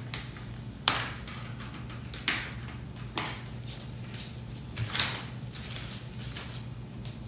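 Sharp clicks and small ticks from weeding cut vinyl with a hook-type weeding tool: four louder clicks a second or so apart, with fainter ticks between, over a steady low hum.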